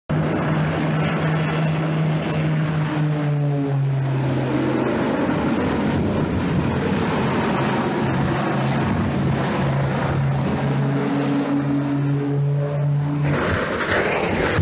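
Twin piston-engine propeller airplane flying low overhead, its engine drone steady with the note dropping in pitch about four seconds in and again near the end. A broad rushing noise takes over in the last second.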